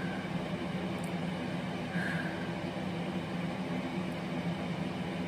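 Steady low hum with an even hiss: the room tone of a small room, with no other event standing out.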